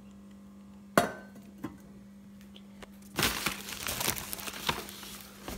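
A single sharp metallic clink with a short ring about a second in, as the gold-toned metal handi and its lid are handled, followed from about three seconds in by rustling and crinkling of packaging in a cardboard box. A faint steady hum runs underneath.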